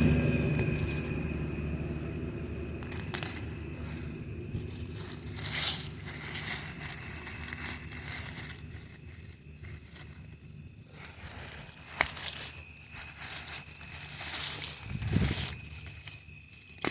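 Crickets chirping in an even rhythm, about three high chirps a second. A passing car fades away over the first couple of seconds, and there is a single sharp click about twelve seconds in.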